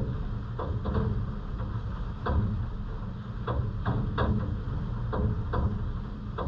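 Scattered drops of rain tapping irregularly on a hard surface close to the microphone, about ten light taps at uneven spacing, over a steady low rumble.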